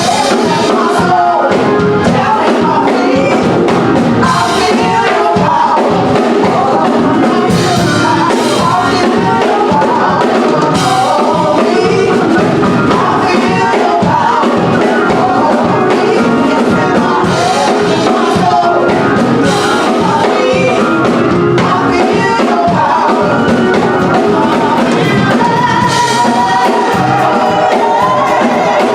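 Gospel song with singing over a band with drums.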